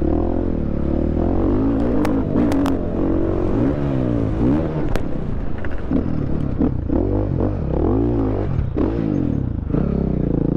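KTM 500 EXC's single-cylinder four-stroke engine, heard from the rider's seat, revving up and falling back again and again with the throttle on a motocross lap. A few sharp clacks come from the bike in the first half.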